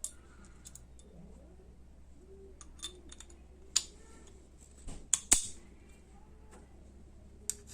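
Scattered sharp metal clicks and taps as the small internal parts of a half-inch drive 72-tooth ratchet are handled and fitted into its head, with the loudest pair about five seconds in.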